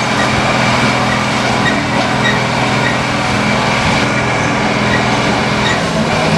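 Unimog truck's diesel engine running steadily, a loud even drone with no change in pitch.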